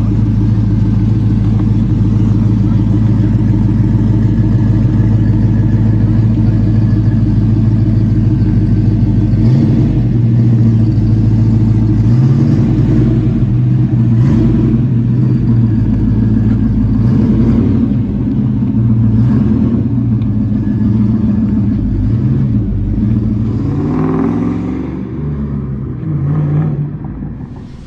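Chevy OBS pickup truck's engine idling with a steady exhaust note, revved up and back down several times in the second half. It drops away near the end.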